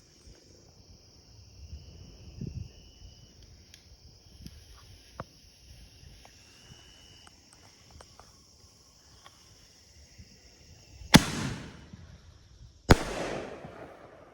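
Two sharp bangs about a second and a half apart near the end: a consumer canister shell firing from its mortar tube, then bursting overhead as a brocade crown break, the second bang trailing off slowly. Before them there is only a steady chirring of insects and a few faint clicks.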